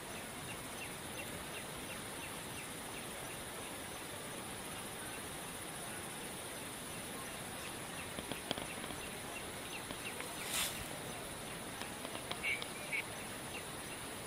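Insects calling in the undergrowth: a steady high-pitched drone with a faint ticking chirp two or three times a second, plus a few short noises in the second half.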